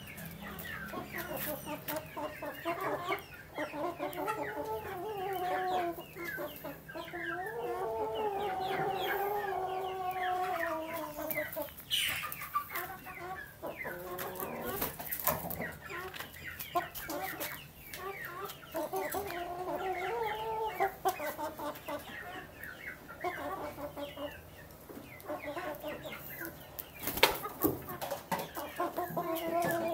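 Chickens, a rooster and two hens, clucking and calling almost without pause: many short clucks, with a few longer drawn-out calls. A sharp knock near the end is the loudest single sound.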